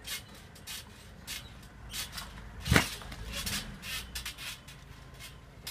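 Garden trampoline springs creaking and the mat thudding with each bounce, a quick irregular run of sharp short sounds. One louder landing comes about three seconds in, as the jumper drops onto the mat in a seated bounce.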